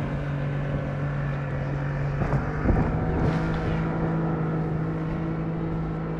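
A boat motor running steadily; its pitch steps up slightly about two and a half seconds in, and there are a few short knocks at about the same point.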